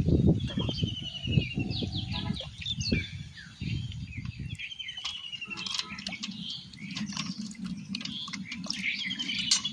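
Small birds chirping in quick trills, over close rustling and knocks as a nylon cast net is worked by hand through the first half; after that a low steady hum continues under the birdsong.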